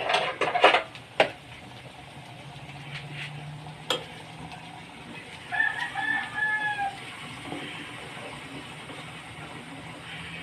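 A rooster crows once about halfway through, a call lasting a little over a second. A few sharp clinks come in the first second or so, and another near four seconds in, over a low steady hum.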